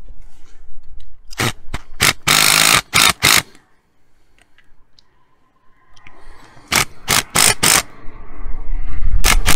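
Cordless DeWalt impact driver driving the fixing screws of a key safe into wall plugs in a masonry pillar, in short bursts of hammering. A few quick bursts and one longer run come a second or two in, then a quiet spell, then four short bursts and more near the end as the screws are nipped up.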